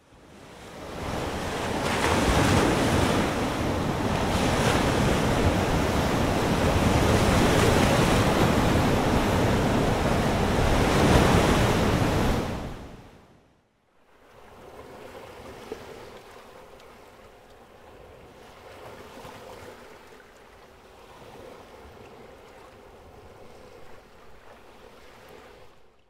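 Ocean waves and surf: a steady, loud rush of moving water that fades out about 13 seconds in. It then fades back in as a much quieter wash of water.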